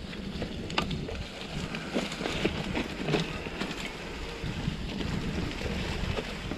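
A mountain bike riding fast over dry fallen leaves: the tyres rolling through the leaf litter with a steady rushing crunch, scattered clicks and rattles from the bike, and wind rushing on the microphone.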